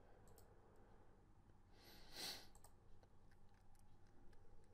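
Near silence: a few faint computer-mouse clicks, and a soft breath into the microphone about two seconds in.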